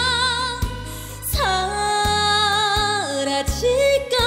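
Female trot singer holding long notes with a wide vibrato over a backing band with bass and drums, her voice gliding down to a lower note about a second and a half in and again near the end.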